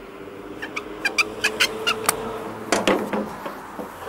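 Needle-nose pliers working a spring out of a mower part: a run of small sharp metallic clicks and ticks, then a louder clatter about three seconds in.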